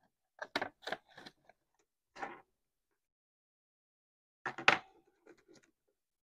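Paper banknotes handled and flicked as they are counted, with a few short crisp rustles in the first second or so. About four and a half seconds in comes a louder crinkle as the bills go into a clear plastic binder pocket, followed by a few light taps as they are pressed flat.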